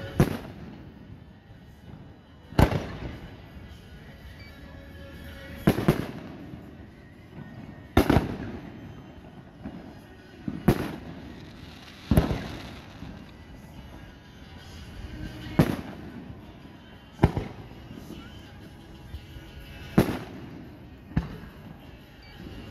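Aerial firework shells bursting overhead: a sharp boom every two to three seconds, about ten in all, each trailing off in an echo.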